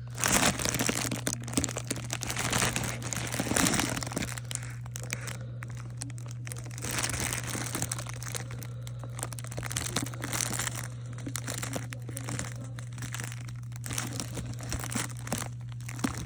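Small plastic bags of diamond-painting drills being handled and sorted, crinkling irregularly throughout, over a steady low hum.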